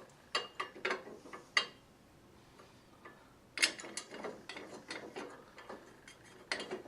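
Small metal clicks and taps of bolts being fitted and screwed down into a gumball machine's rack bracket: a few clicks, a pause of about two seconds, then a quicker run of clicks.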